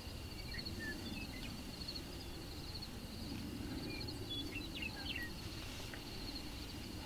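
Faint outdoor ambience of insects trilling steadily, with a few short high chirps scattered through and a low rumble underneath.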